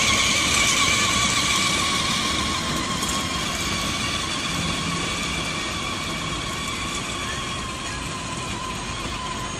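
Electric ride-on toy car's motors whining steadily while its plastic wheels rumble over paving stones, fading slowly as the car pulls away.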